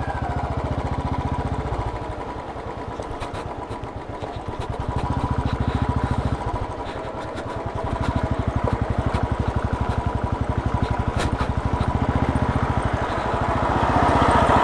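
Motorcycle engine running under way, easing off and picking up again twice, louder again near the end.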